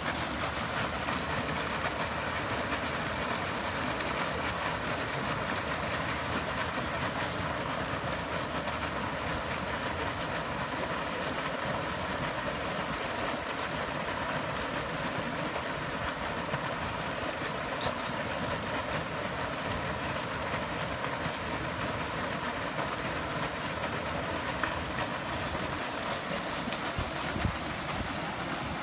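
Steady rush of flowing water from the Pader river channels and a bubbling fountain jet: an even, unchanging noise.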